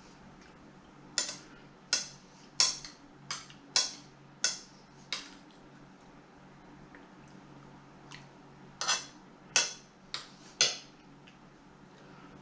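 A fork clinking and scraping against a dinner plate while food is scooped up: a quick run of about seven clinks, a pause, then four more.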